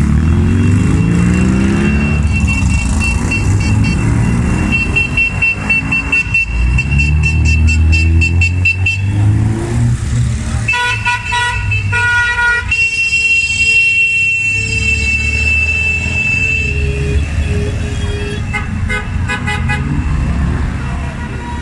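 Small vintage cars, Fiat 500s among them, driving past slowly with their engines running and pulling away at the start. Car horns honk: a long horn blast about halfway through, then several short toots near the end.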